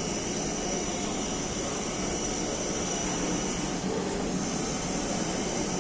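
Steady shopping-mall background noise: an even hum and hiss with no distinct events.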